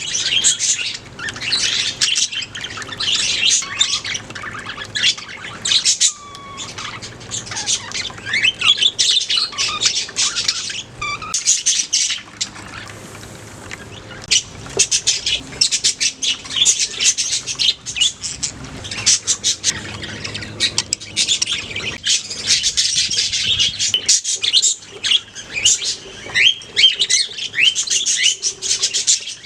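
A budgerigar colony: many budgies calling over one another in a dense, continuous stream of short chirps, easing off briefly about halfway through.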